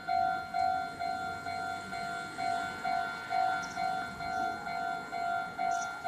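Japanese railway level crossing's electronic warning bell ringing, a steady clang-like tone repeating about twice a second: the crossing's alarm, sounding because a train is approaching.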